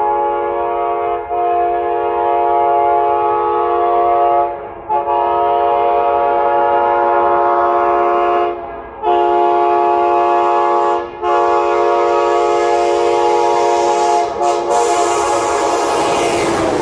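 Nathan K5LA five-chime train horn, the 80s wide-font big-bore version, on an ex-Amtrak AEM-7 electric locomotive, blowing long blasts broken by about four short gaps. Over the last few seconds the rush of the approaching train grows, and the horn's pitch drops as the locomotive passes at the very end.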